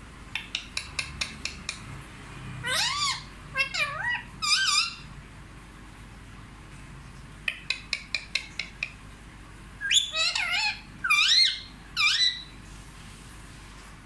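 Rose-ringed parakeet calling in two bouts: each a quick run of sharp clicks followed by a few pitched calls that swoop up and down.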